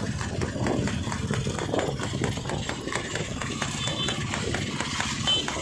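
A horse's hooves beating rapidly and regularly on the paved road as it pulls a racing tanga (two-wheeled horse cart), with a motorcycle engine running close alongside and voices in the background.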